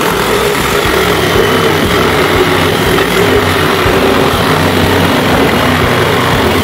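Electric jigsaw running steadily as its blade cuts through a laminated wooden board.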